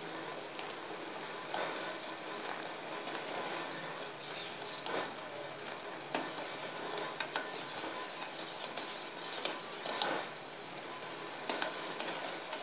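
Sugar syrup bubbling at a boil in a stainless steel pan while a steel spoon stirs it, scraping and clinking against the pan many times over a steady bubbling hiss. The syrup is nearly ready, stirred so it does not settle at the edges and burn.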